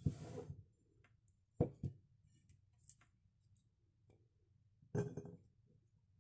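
Sharp knocks and clinks of a ceramic plate of spice ingredients being handled on a table. One comes right at the start with a short rustle after it, a quick double knock about a second and a half in, and another about five seconds in.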